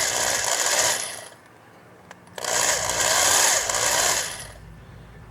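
Electric drill with a 7/32 bit run in two bursts, about one second and then about two seconds long, grinding the rivet heads off a Hot Wheels car's base.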